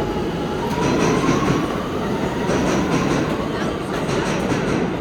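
New York City subway train running through the station, a steady rumble of wheels on rail with a faint whine rising in pitch over the first few seconds.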